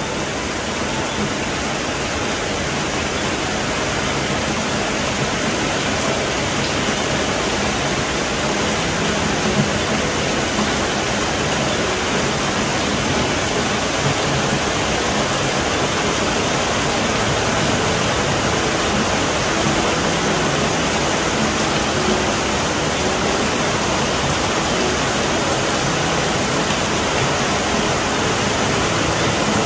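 Heavy rain pouring down, a steady even rush of water.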